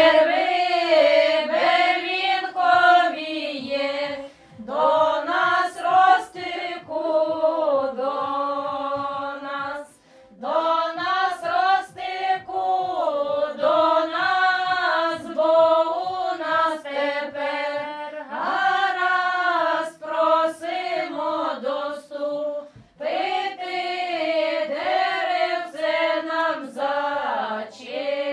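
A small group of women singing a traditional Ukrainian wedding ritual song together, with no instruments. It comes in about five long drawn-out phrases with short breaks for breath between them.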